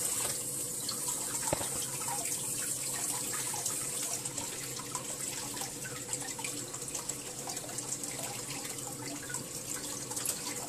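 Kitchen tap running steadily into a stainless steel sink as a plant's roots are rinsed clean of soil under the stream, with small splashes and clicks from the hands working in the water.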